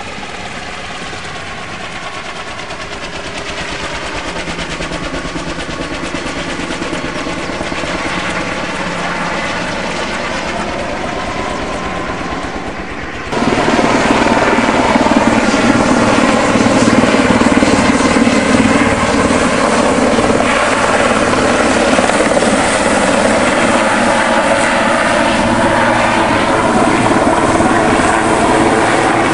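Firefighting helicopter flying low with its rotor beating, growing louder as it comes closer. About 13 seconds in the sound cuts suddenly to a louder, closer helicopter that runs steadily.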